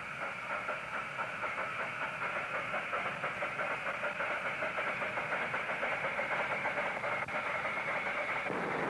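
Miniature steam train running, with a quick, even chuffing and a steady hiss; the sound changes just before the end.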